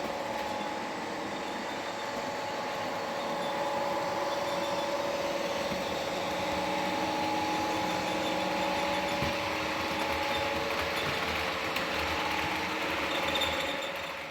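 Model Class 55 Deltic diesel locomotive running with DCC sound: the decoder plays a steady diesel engine note through the model's small speaker. It fades out at the end.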